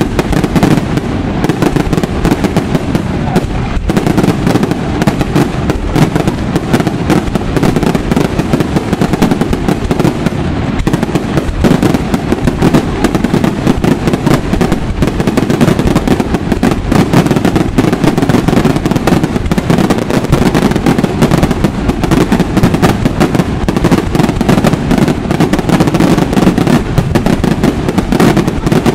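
Fireworks display: a continuous, dense barrage of aerial shells bursting and crackling, many loud bangs a second without a break.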